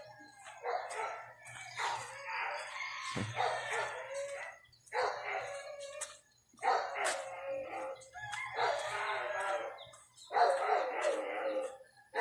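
Dogs barking and howling, mixed with a rooster crowing, in repeated calls about every second or two. A single low thump comes about three seconds in.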